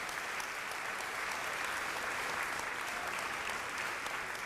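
Audience applauding steadily, a dense even patter of many hands clapping in a hall.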